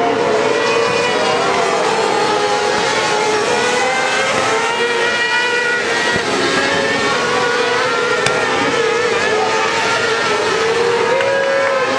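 Several kart cross buggies racing on a dirt track, their engines revving high with the pitch wavering up and down as they pass through the corners.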